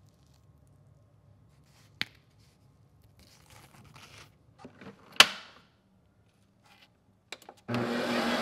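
A few sharp clicks and some soft rustling, the loudest click about halfway through; then, near the end, a Ninja Creami ice-cream maker's motor starts up and runs with a steady hum.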